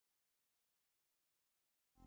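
Silence, with background music just starting at the very end.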